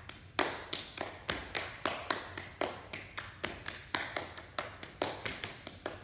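Two people playing a partner hand-clapping game, alternating their own hand claps with palm-to-palm claps against each other's hands. The claps come in a quick, even rhythm of about five a second, each with a short echo off the hall.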